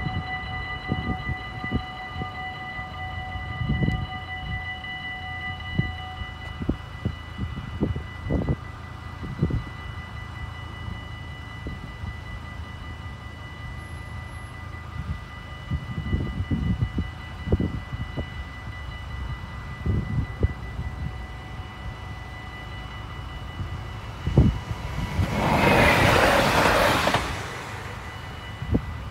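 Railway level-crossing warning bells ringing steadily while the barriers are lowered, part of the ringing dropping away about six seconds in, over irregular low thumps. Near the end a loud rushing noise lasts about two seconds.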